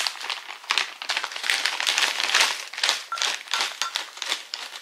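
Plastic bag of blueberries crinkling and rustling in the hands as it is opened and tipped to pour berries into a bowl, with irregular crackles throughout.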